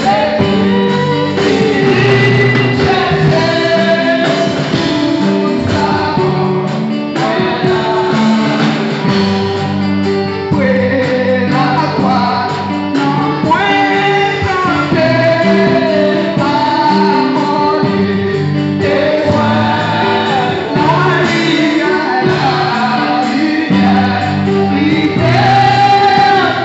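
Gospel hymn sung by a woman into a microphone, with backing singers and instrumental accompaniment holding low sustained notes.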